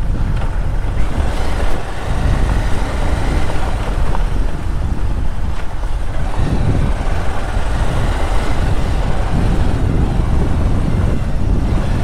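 Bajaj Pulsar motorcycle riding along a rough dirt track: the engine runs steadily under a dense low rumble, with no clear breaks or revs.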